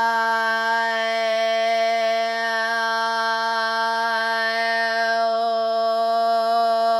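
A woman's voice holding one long, steady sung note on an open vowel, a toned chant of channelled light language.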